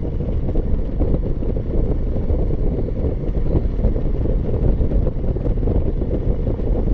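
Wind rushing over the microphone while riding a motorcycle, a steady low rumble with engine and road noise underneath.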